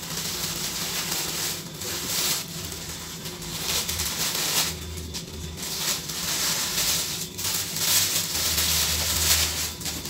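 Plastic packaging and bubble wrap rustling and crinkling as they are handled, in irregular surges.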